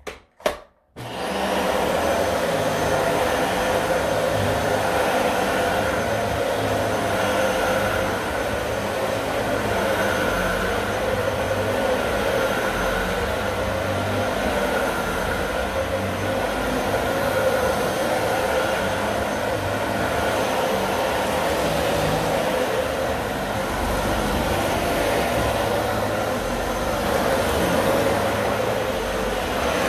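Dyson Ball Multi Floor 2 upright vacuum cleaner switched on with a click, its motor coming up about a second in and then running steadily at full suction while vacuuming carpet.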